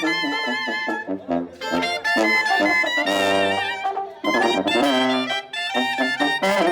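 Sinaloan brass banda playing live. Trumpets and trombones carry a melody of held notes with vibrato over low bass notes, with a few bright crashes about three, five and six and a half seconds in.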